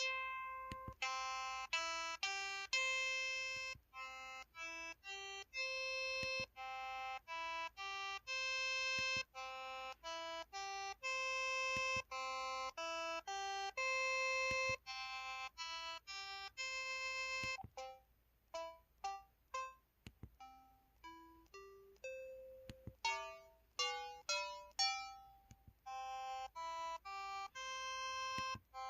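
KTF-X3500 mobile phone keypad button tones: a run of short synthesized beeping notes at changing pitches, like a little melody. From about 18 to 26 seconds in, the notes come quicker and more clipped.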